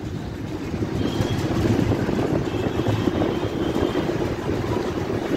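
City bus running along a road, heard from inside the passenger cabin: a steady low engine and road rumble with surrounding traffic noise.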